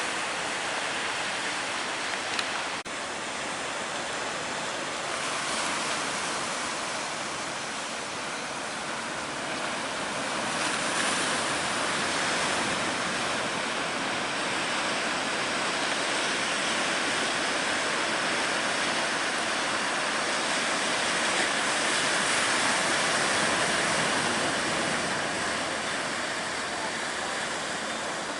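Big sea waves breaking and surf washing steadily, swelling louder twice along the way, with one sharp click about three seconds in.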